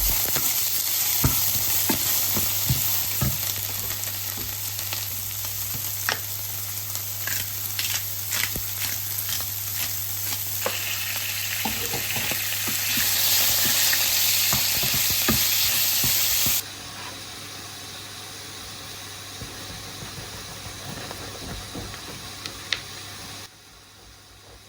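Food sizzling as it fries in a hot pan, with the clicks and scrapes of a utensil stirring it. The sizzle drops sharply in level about two-thirds of the way through, and again near the end.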